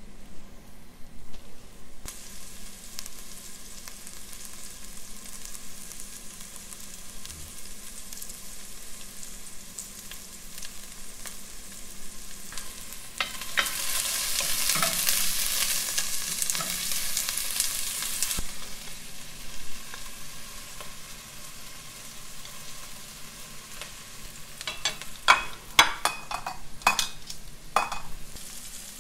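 Diced onions and vegetables sizzling in butter in an enamelled cast-iron pot, stirred with a wooden spoon, the sizzle growing much louder for about five seconds in the middle as they are stirred. A few sharp knocks come near the end.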